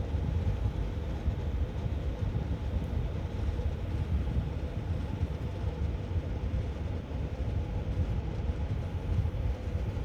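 Graphics card running steadily under test, with a low rumble, a steady fan whir and a faint hum. No high-pitched coil whine: the card's chokes are quiet.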